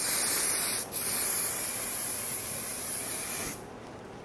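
Aerosol hair spray hissing onto a mannequin's short haircut in two blasts: one that stops about a second in, then after a brief break a longer one of about two and a half seconds.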